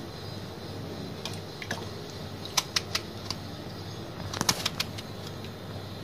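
Sharp clicks from a kitchen knife cutting crosswise slits into small, firm green aubergines: a few single clicks, then a quick cluster near the end, over a steady low hum.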